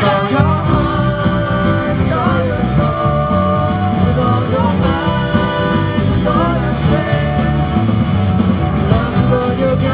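Live band playing rock-style music, with singing over guitar and bass.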